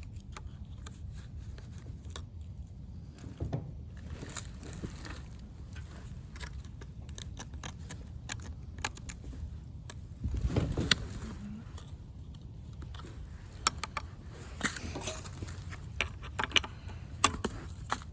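Metal hand tools clinking, clicking and scraping against engine parts during disassembly, in scattered irregular strokes, with a heavier dull knock about ten seconds in.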